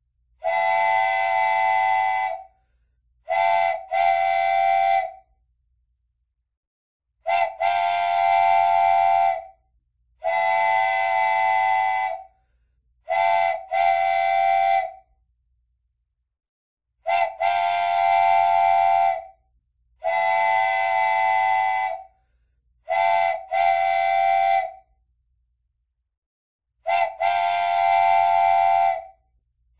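Wooden toy train whistle blown repeatedly, sounding several notes at once like a train chord. It gives blasts of about two seconds and pairs of short toots, with silent gaps between, in a repeating pattern.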